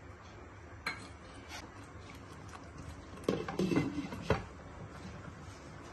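Glass pan lid with a metal rim being set onto a nonstick frying pan: a cluster of clinks and a sharp knock with brief ringing between about three and four and a half seconds in, after a single light tap about a second in.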